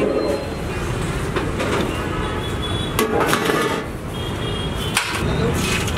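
Busy street ambience: steady traffic noise with faint background voices, and two sharp knocks, one about halfway through and one near the end.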